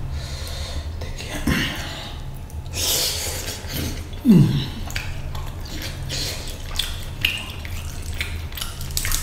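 Close-up eating sounds: fingers squishing rice and fish curry together on the plate, then wet chewing and lip smacks, over a steady low hum. About four seconds in, a brief falling vocal sound from the eater is the loudest moment.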